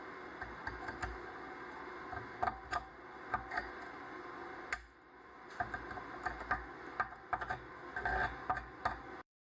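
Stick (shielded metal arc) welding: the electrode arc crackles steadily with irregular sharp pops. There is a short break about five seconds in, and the sound stops abruptly near the end.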